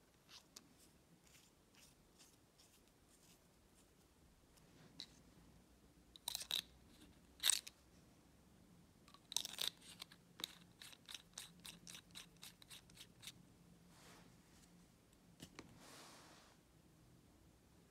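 Light clicks and taps of a Montblanc Bohème fountain pen's metal and resin parts being handled and fitted together. A few sharper knocks come in the middle, followed by an even run of about a dozen small clicks, roughly four a second, then a brief soft rustle of hands.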